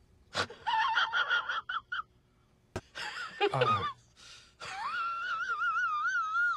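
A man's high-pitched wheezing squeals broken by gasps, ending in a long wavering squeal over the last two seconds.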